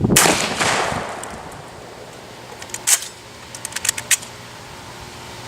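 A shotgun shot just after the start, its report trailing off over about a second. A few seconds later come a single sharp click and then a quick run of sharp metallic clicks, the gun's action being handled.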